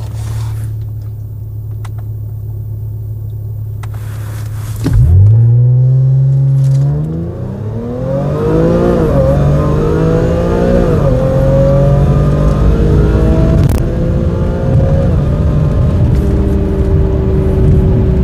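Audi 3.0T supercharged V6 idling at a stop, then about five seconds in launching at full throttle for a hard pull through the gears. The engine pitch climbs and drops back twice at the upshifts, then keeps rising to the end. Heard from inside the car.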